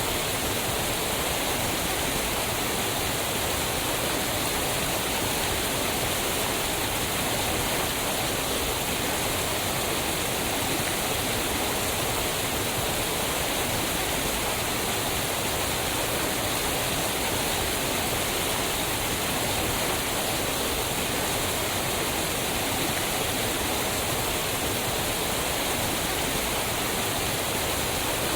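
Waterfall: a steady, unbroken rush of falling water, spread evenly from low to high pitch with no changes.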